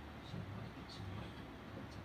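Ballpoint pen scratching on a textbook page in a few short strokes, over a steady low hum.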